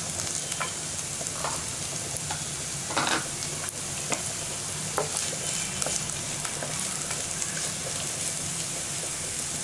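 Chopped onion sizzling in a little hot oil in a nonstick pan, a steady hiss, with a few short knocks and scrapes of a wooden spatula stirring it.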